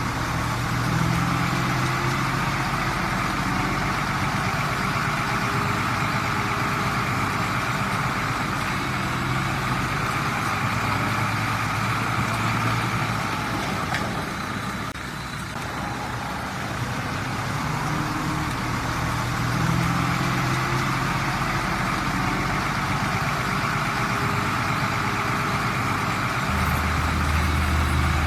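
Heavy diesel engine of earthmoving machinery running steadily, its note shifting up and down as it works, with a slight dip about halfway through.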